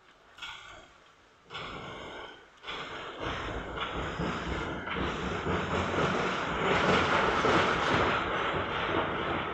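A train passing on nearby tracks: its running noise builds from about a second and a half in, grows loudest past the middle and begins to ease near the end.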